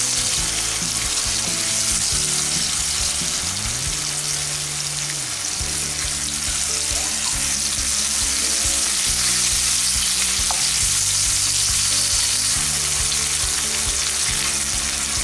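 Spice-coated potato slices sizzling steadily in hot refined oil in a kadai while a wooden spatula turns them over so the second side can fry.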